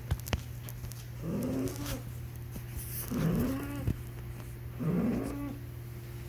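A sleeping pet snoring: three snores about two seconds apart, each a short sound whose pitch rises and then falls. A steady low hum runs underneath, and two sharp clicks come right at the start.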